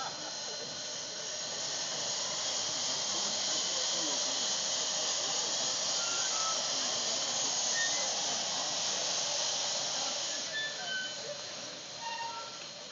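Steady hiss of steam venting from a steam locomotive. It swells over the first couple of seconds, holds, then eases off after about ten seconds, with a few faint short high tones over it.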